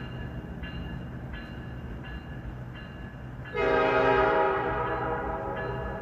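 EMD SD60M diesel locomotive running, with a ringing bell striking about every three-quarters of a second. A little over halfway through, its air horn sounds a loud blast of about two seconds that fades away.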